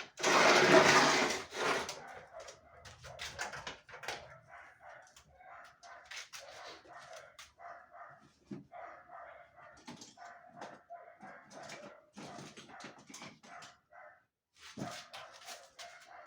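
A dog whining and barking in short repeated calls, after a loud rushing burst of noise about a second and a half long at the start.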